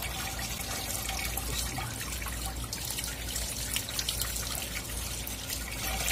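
Water running steadily from a garden hose, splashing and trickling over a large fish as it is rinsed by hand.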